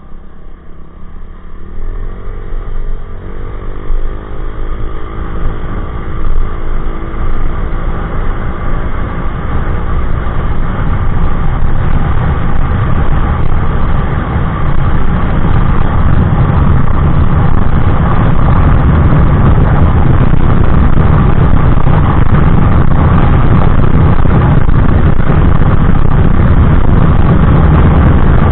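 Honda Click 125i scooter with an aftermarket EXOS X6 exhaust accelerating at full throttle toward top speed. The engine note rises in the first few seconds and then holds, while a rushing wind noise grows louder until it runs steady and covers the engine.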